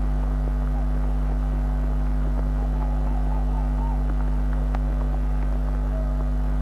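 Steady low electrical mains hum with its overtones running through the broadcast audio, unchanging in level.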